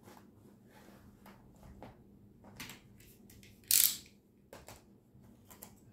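Handling noise from unpacking: soft rustles and light clicks as a zippered camera carrying case is set down and a utility knife is picked up. One loud, brief scrape comes a little before four seconds in, and a few sharp clicks follow near the end.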